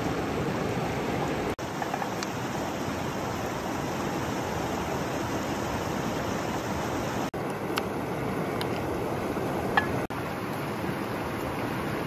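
Steady rushing of a river stream, with a few faint light ticks in the second half and three momentary dropouts where the sound cuts.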